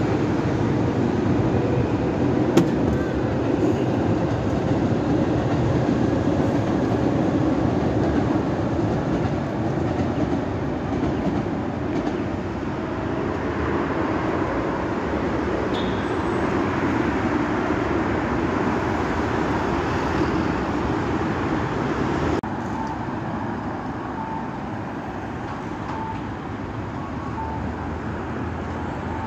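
Steady rumble of city road traffic and a train passing on the overhead rail viaduct, swelling about halfway through. After a cut near the end, quieter street traffic with faint short beeps about once a second.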